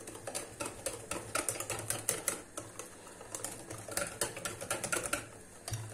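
Wire whisk beating a thick semolina batter by hand in a glass bowl, the tines clicking rapidly and unevenly against the glass.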